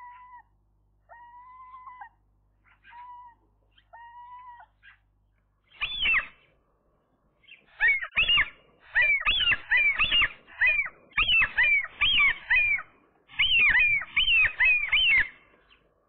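Common gulls calling: a few faint, drawn-out level calls in the first five seconds. Then, from about six seconds, a loud run of high, arching calls given in quick series.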